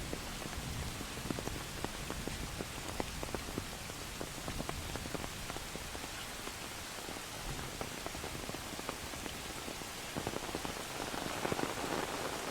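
Steady rain falling on a surface, with many separate drops ticking through it; it grows a little louder and fuller near the end.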